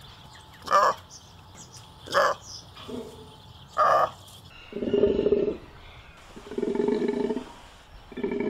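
Takin calling: three short calls about a second and a half apart, then three longer, deeper calls, each lasting nearly a second.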